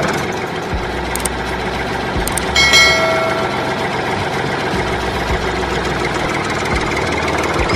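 Diesel engine idling steadily, with a short pitched tone about three seconds in.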